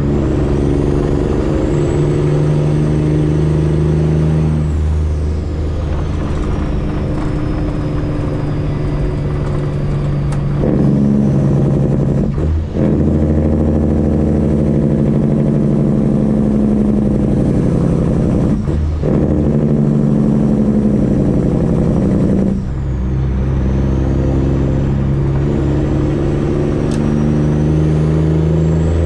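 Freightliner Classic XL semi-truck's straight-piped diesel engine running under load, with a few short breaks where the pitch drops and builds again, about twelve, nineteen and twenty-three seconds in, like gear shifts. A faint high whistle rises and falls above it.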